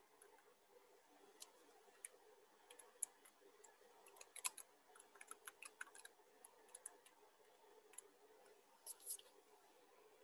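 Faint, irregular clicks of a computer keyboard and mouse, coming in scattered runs that are busiest in the middle, over a low steady room hum.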